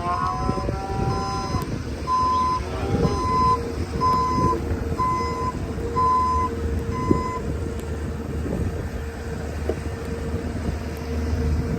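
A farm machine backing up, its reverse alarm beeping about once a second over the running engine, the beeping stopping about seven seconds in.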